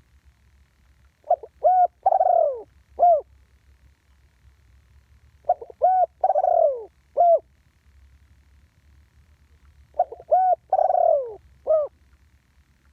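Spotted dove calling: three cooing phrases about four seconds apart, each made of a few short coos around one longer note that falls in pitch.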